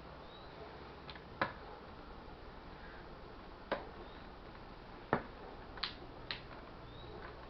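Five sharp clicks and taps, unevenly spaced, from a laptop and small tools being handled during disassembly, over a faint steady hum.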